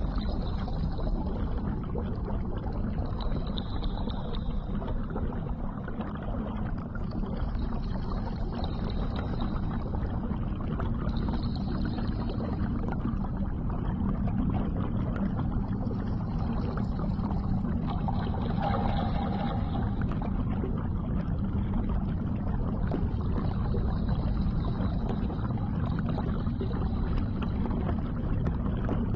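Underwater ambience: a steady low rumble, with faint high tones that come and go every few seconds.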